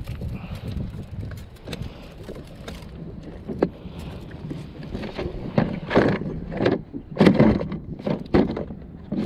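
Knocks and metallic rattles of a wire loop fish stringer and fish being handled on a plastic kayak's deck, over wind and water noise. The knocks come thickest in the second half.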